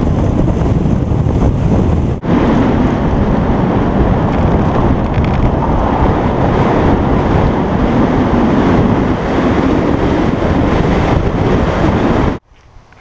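Heavy wind buffeting on a GoPro's microphone on a fast-moving Honda S2000 on a gravel road, with the car's running noise underneath. It breaks briefly about two seconds in and cuts off abruptly near the end.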